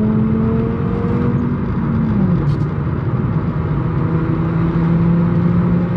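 VW Mk6 Golf's naturally aspirated 2.5-litre five-cylinder running with its exhaust cut off. The engine note rises slowly, drops about two seconds in, then climbs slowly again.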